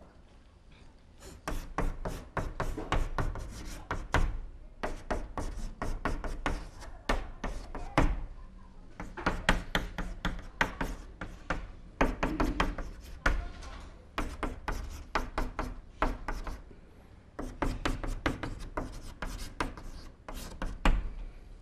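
Chalk writing on a blackboard: quick runs of tapping and scraping chalk strokes, broken by short pauses, starting about a second and a half in.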